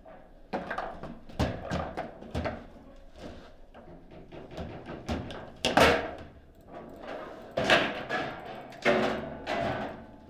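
Foosball table play: the hard ball knocked about by the rod-mounted players and rebounding off the table walls, with rods clacking, in a string of irregular sharp knocks, the loudest near the middle. The rally includes a goal being scored.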